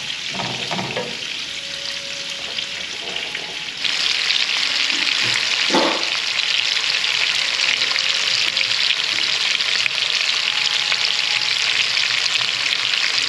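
Sliced sausage sizzling in hot fat in a frying pan, a steady hiss that gets suddenly louder about four seconds in.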